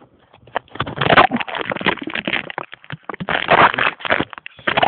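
Rough, irregular crackling and buffeting on the microphone of a phone mounted on the side of an electric R/C plane, with no clear motor tone. It comes in loud surges, strongest about a second in and again near the end.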